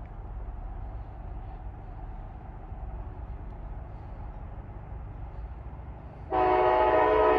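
Low, steady rumble of the approaching train, then, about six seconds in, the lead CSX SD70AH locomotive's air horn sounds a loud, sustained chord of several tones.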